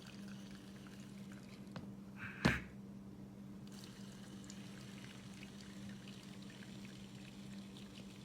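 Brewed coffee trickling and dripping from a Presto MyJo single-cup coffee maker into the cup, over a faint steady low hum, with one sharp knock about two and a half seconds in.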